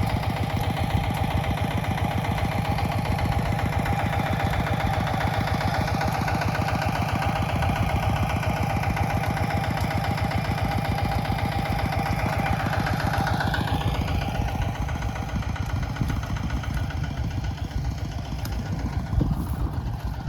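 Mini tractor's small engine running steadily under load with a fast, even beat.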